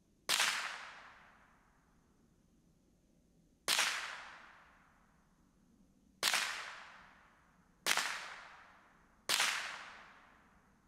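Five single shots from a Ruger 10/22 semi-automatic .22 rimfire rifle, fired at uneven gaps of about one and a half to three and a half seconds. Each sharp crack is followed by a fading echo.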